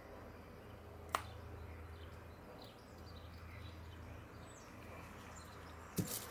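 Quiet room tone with a steady low hum, a short faint click about a second in and another near the end, and a few faint bird chirps in the background.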